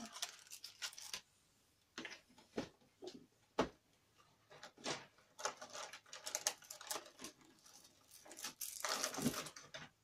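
Handling of a clear plastic storage case and the card-and-cellophane packs of craft embellishments inside it: scattered plastic clicks, taps and rustles, with one sharp tap about three and a half seconds in and a busier stretch of rustling near the end.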